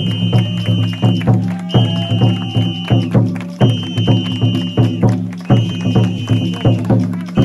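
Festival music of taiko drum beats, several a second, over a low steady drone. A high tone sounds for about a second and repeats roughly every second and a half.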